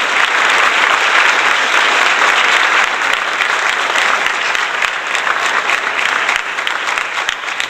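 Applause: dense, steady clapping from many hands, easing slightly in the second half.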